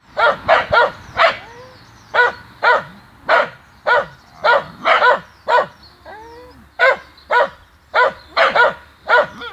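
A dog barking over and over, about sixteen short barks in uneven runs of one to three. In two of the gaps there is a faint, brief whine.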